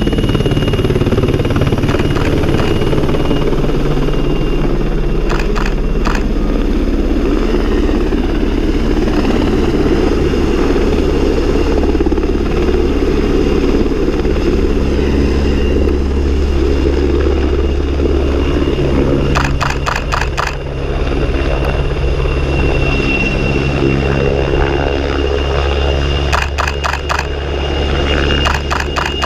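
Helicopter flying low and then moving away: steady rotor and engine noise with a thin high whine, and a few short runs of rapid rotor thumps.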